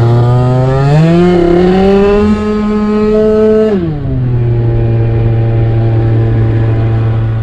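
Small two-stroke scooter engine revving: the pitch climbs over the first two seconds, holds high, then falls back sharply about four seconds in and runs on at a steady lower pitch.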